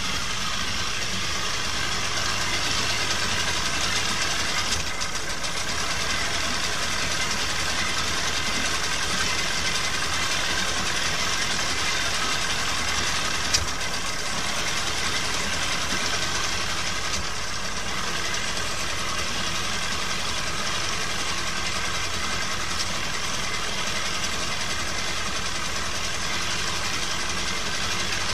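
Mercury 25 hp outboard engine idling steadily, its lower unit running in a drum of water that froths around the leg. A single sharp click about halfway through.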